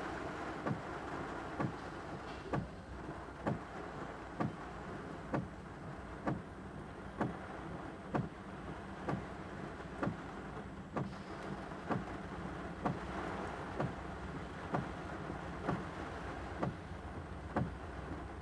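Car windshield wipers sweeping in the rain, knocking at an even pace of a little over once a second over a steady hiss and low hum.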